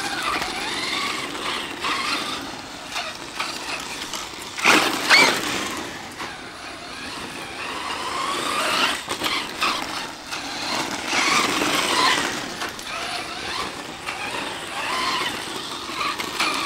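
Thunder Tiger SSK v2 RC truck running on a brushless electric motor, driven in quick bursts. The motor's whine rises and falls several times as it speeds up and slows down, loudest in a sharp rising burst about five seconds in.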